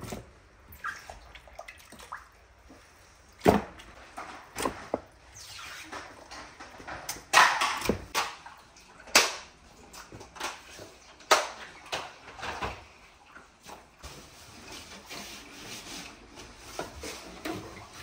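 Water sloshing and splashing, broken by irregular knocks and clatters, with a longer splashing stretch about halfway through.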